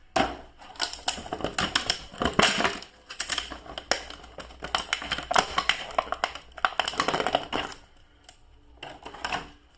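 Hands handling a plastic toy action figure and its packaging: a fast, uneven run of small plastic clicks and crinkles that eases off near the end.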